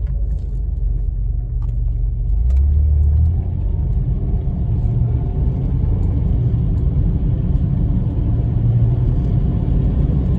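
Car with a ZF 4HP18 automatic transmission accelerating, heard from inside the cabin: a steady low engine and road rumble that swells briefly a few seconds in.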